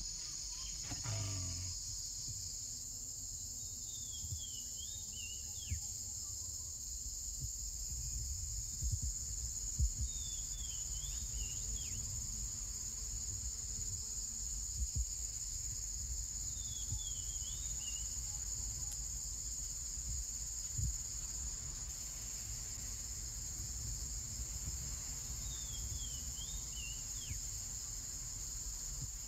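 Steady chorus of tropical forest insects, with a bird's short descending whistled phrase repeating about every six seconds. A low rumble and a few sharp knocks lie underneath.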